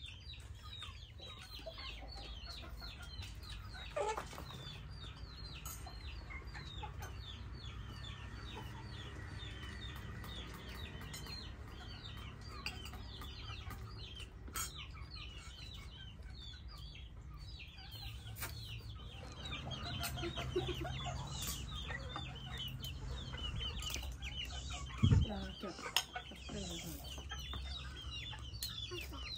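Chickens calling continuously, many short high calls overlapping, with occasional clinks of kitchenware and one loud knock about 25 seconds in.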